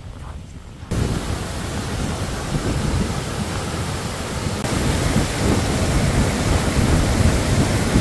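Wind buffeting the microphone: a loud, rough rumble that cuts in suddenly about a second in.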